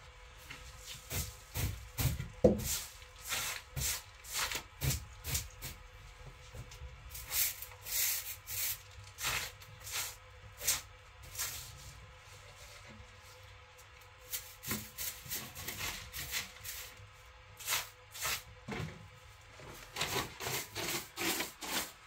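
Short hand broom swept across a bare floor in quick, irregular strokes, each a brief brushing scrape, with a pause of a few seconds midway.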